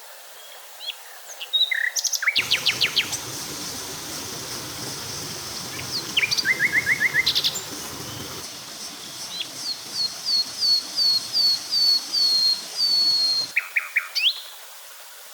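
Wild birds calling: short rapid trills, then a run of about a dozen quick downward-sliding whistled notes, over a steady high insect hiss.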